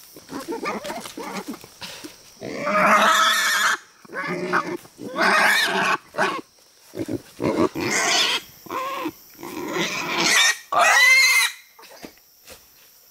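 Wild boar grunting and squealing in a run of loud calls, the highest-pitched squeal near the end.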